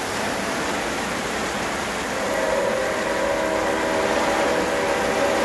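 Steady rain falling on the trees and ground. About two seconds in, a steady drone of several tones joins over the rain.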